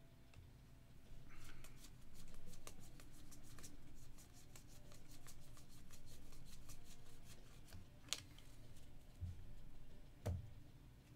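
Trading cards from 2024 Panini Score Football packs being flicked through by hand, a quick run of soft card-on-card clicks, with a couple of sharper taps near the end.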